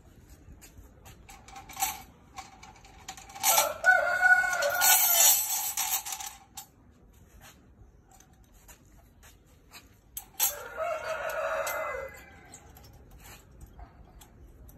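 A rooster crows twice: a long crow a few seconds in and a shorter one, falling at the end, about ten seconds in. Between them come light clicks of tie wire and a steel tying hook on rebar.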